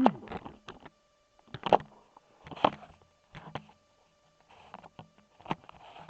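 A wavering synthesizer drone cuts off abruptly at the start. Sparse sharp clicks and short hissy bursts follow, roughly one a second, over a faint steady tone.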